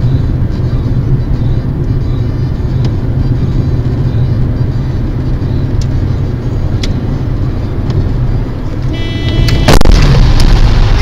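Car interior noise heard through a dashcam while driving: a steady low rumble of engine and tyres on a wet road. About nine seconds in there is a short high tone, then a sudden loud bang as the car begins to crash.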